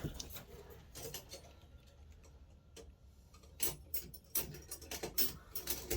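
Faint, scattered clicks and taps of wrenches and packaging being handled, growing more frequent in the second half.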